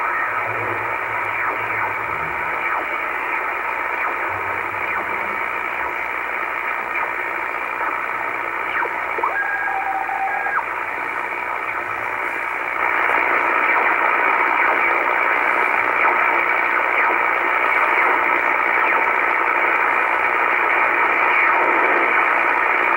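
Shortwave receiver in upper sideband hissing with band static as it is tuned across the 5 MHz band, with faint whistles of signals sliding past. A short steady two-tone signal sounds about ten seconds in, and the static grows louder about thirteen seconds in.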